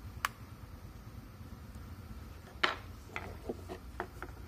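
Small sharp clicks and light taps of tweezers and phone parts being handled: one click near the start, a louder one about two and a half seconds in, then a quick run of smaller taps. A low steady hum runs underneath.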